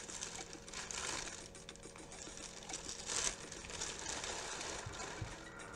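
White wrapping paper rustling and crinkling as it is handled and pulled off a new Air Jordan 1 sneaker, with a louder crinkle about three seconds in.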